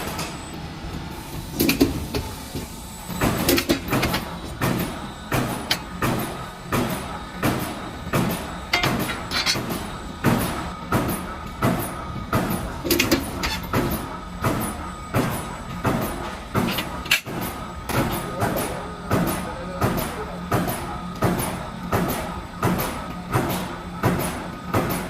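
Shutter door roll forming machine running, its hole-punching press striking in a steady rhythm about three times every two seconds over the machine's steady hum.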